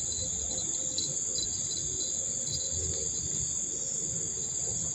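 Steady chorus of insects shrilling, an unbroken high-pitched drone, with a faint low rumble beneath.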